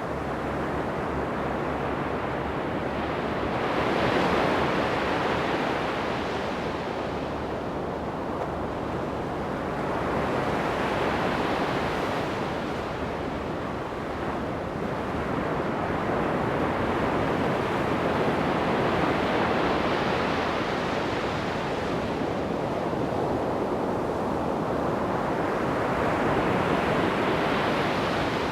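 Ocean waves breaking and washing up the shore: a steady rush of surf that swells with each breaking wave, about every seven seconds.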